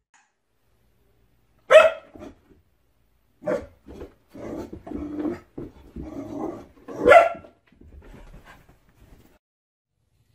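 Small dogs barking at their own reflections in a mirror: a sharp bark about two seconds in, a run of softer barks in the middle, and the loudest bark about seven seconds in.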